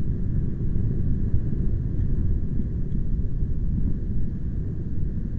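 Strong wind buffeting the microphone: a loud, unsteady low rumble with little hiss above it.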